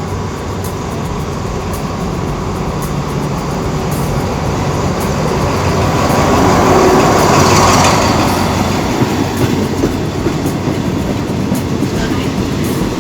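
Diesel-hauled passenger train pulling into the station platform: a steady low engine and wheel rumble that swells to its loudest about six to eight seconds in, with clicking wheels on the rails later on.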